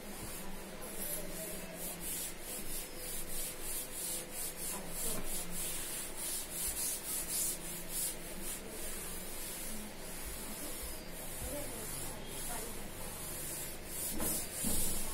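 Chalkboard being wiped clean with a hand-held duster: a run of dry rubbing strokes, a couple a second.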